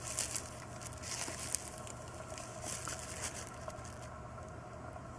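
Rustling and scraping of cardboard and packing material being handled during unboxing, with small clicks, busiest in the first couple of seconds and dying down near the end.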